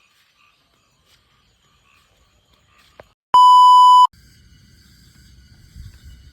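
A loud, steady electronic beep at one pitch lasting under a second, about halfway through, with faint animal calls before it.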